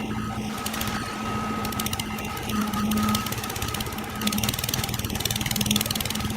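A machine running steadily with a low hum, overlaid by a fast clicking rattle that comes and goes, strongest about two and a half seconds in and again from about four seconds in.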